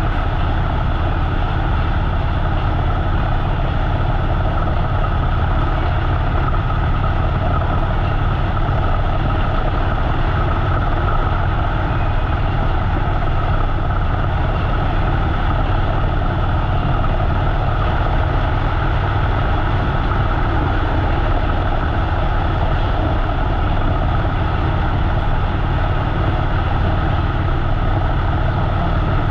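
Harley-Davidson V-twin motorcycle engine running steadily at cruising speed, with an even rush of wind and road noise over it.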